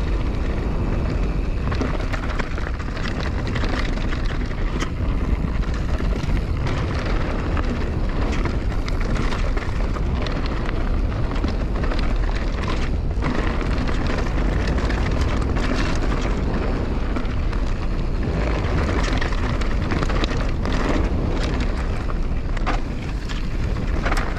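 Wind buffeting the action camera's microphone during a fast descent on an enduro mountain bike, a steady low rumble. Over it, the tyres crunch over dirt and stones, and the bike rattles with frequent sharp clicks and knocks.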